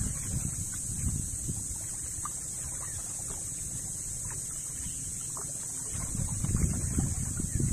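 Water sloshing and lapping against the hull of a small outrigger boat as a man wading beside it pushes it along, with wind rumbling on the microphone that grows louder near the end.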